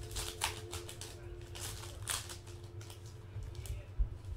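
Trading cards and pack wrappers being handled, several short rustling swishes, with a knock on the table about four seconds in.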